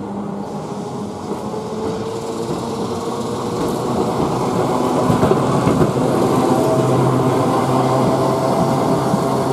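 Glasgow Corporation electric tramcar No. 22 running along street track, its steel wheels rumbling on the rails and its motors humming. It grows louder as it draws near, with a few knocks about five seconds in as it passes close.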